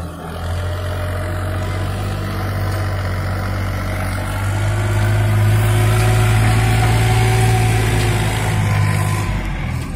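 Preet 955 tractor's diesel engine running steadily as it pulls a trolley over mounded earth. It gets louder about halfway through and falls away just before the end.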